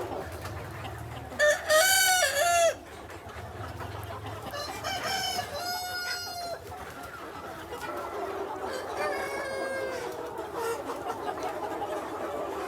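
Roosters crowing, three long crows in turn, the first the loudest, over free-range hens clucking.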